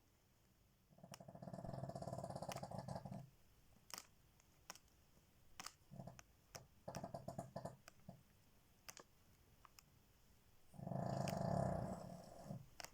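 A sleeping dog snoring: two long snores, about a second in and near the end, with a couple of shorter, fainter ones between them.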